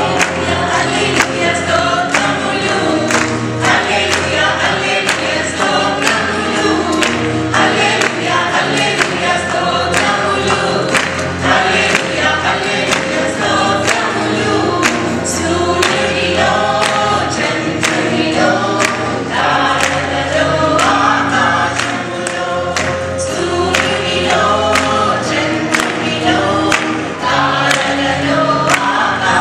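Mixed choir of men and women singing a Telugu worship song, accompanied by acoustic guitar with a steady beat.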